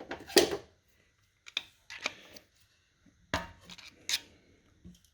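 Irregular metal clicks and knocks of hand tools and a valve spring compressor being worked while a valve spring and retainer are fitted to a V8 cylinder head. About seven separate sharp knocks, with quiet between.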